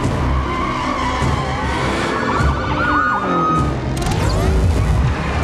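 Police car sirens wailing in a film chase mix, over score music and a low rumble of car engines. A sudden rush of noise comes in about four seconds in.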